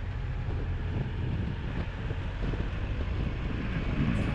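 Motorcycle engine running steadily at road speed, with wind rushing over the microphone.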